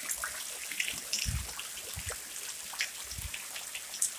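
Rain falling: a steady hiss with many scattered drips and patters on wet ground and roofs.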